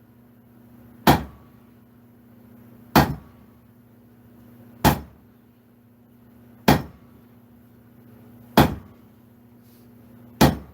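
A 26-pound double-handled sledgehammer, swung by two strikers together, lands six heavy blows in an even rhythm, one about every two seconds.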